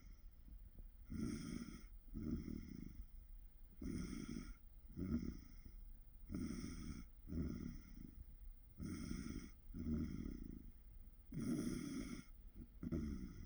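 A man snoring in his sleep: about five breaths, each a loud snore followed about a second later by a softer one, repeating every two and a half seconds or so.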